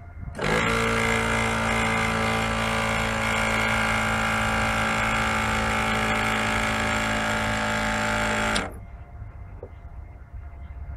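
A machine runs with a loud steady hum and hiss, starting suddenly about half a second in and cutting off abruptly after about eight seconds.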